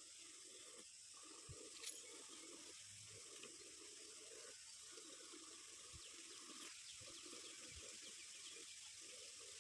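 Cow being hand-milked: jets of milk squirting into a partly filled metal pail in a faint, steady rhythm, about one to two squirts a second. There is a small click about two seconds in.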